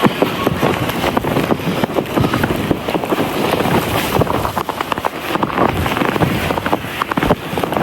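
Snow being crunched and scraped in a rapid, irregular series, with wind buffeting the microphone.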